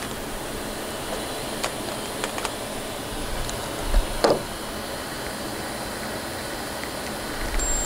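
Light clicks and taps of a small metal toggle clamp and wooden dowel block being handled, over a steady background hiss. A cordless drill starts whirring right at the end.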